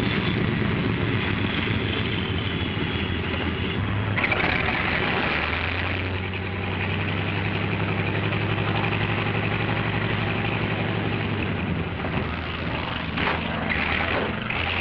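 Radial piston engine of a propeller-driven carrier plane running on deck, a steady engine note that changes pitch about four to six seconds in.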